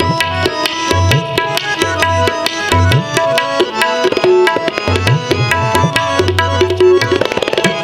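Harmoniums playing the melody with tabla keeping time, the low drum strokes bending upward in pitch: an instrumental interlude between sung verses of Sikh kirtan.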